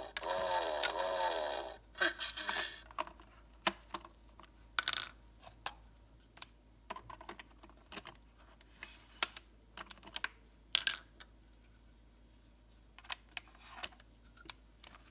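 The 1992 Playskool Big Frank talking toy plays a wavering electronic sound from its speaker for about the first two seconds. After that come scattered sharp clicks and knocks from its hard plastic parts being handled.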